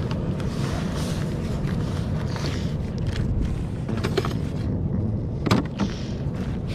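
Handling noises from fishing gear: a zippered pouch being opened and items shuffled in a plastic tackle box, with a sharp click about five and a half seconds in, over a steady low rumble.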